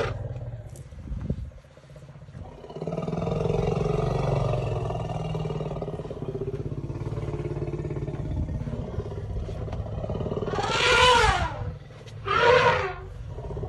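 African elephants calling: a long low rumble with a steady pitch, then two loud calls about a second and a half apart near the end.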